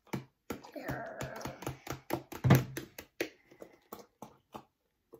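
Plastic school glue bottles being squeezed as glue is forced out, spluttering with a string of irregular clicks and air pops. The loudest pop comes about two and a half seconds in.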